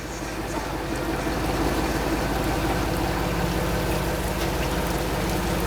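Lobster boat's engine running steadily under way, with the wash of water along the hull.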